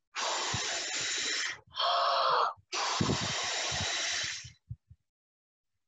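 A woman blowing hard into the microphone in three long, breathy puffs, the last fading out about four and a half seconds in. It is a huff-and-puff imitation of a wolf blowing a house down.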